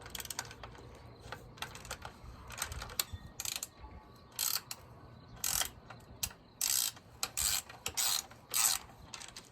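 Wrenches working a bicycle wheel's 15 mm axle nuts loose: short bursts of metallic clicking, coming more often in the second half.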